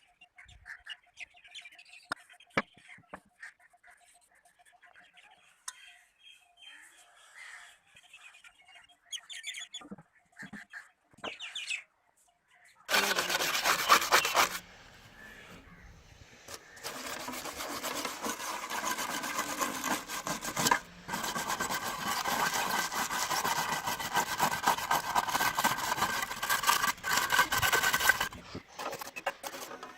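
Rapid rasping strokes of hand abrasive work scraping a rusty metal surface, starting about halfway through. A short first burst is followed by a pause of about two seconds, then a long, nearly continuous run. Before it, only scattered light clicks.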